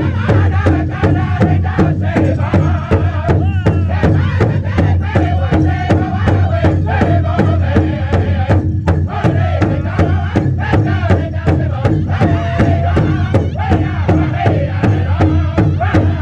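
Northern-style powwow drum group singing a song together over a large powwow drum struck in unison with padded sticks, a steady, even beat under the voices.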